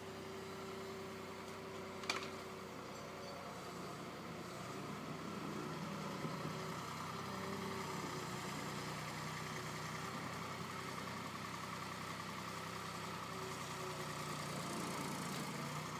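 Engine of a wood-grapple tractor running steadily, growing a little louder after about five seconds as the machine works. A single sharp clack about two seconds in.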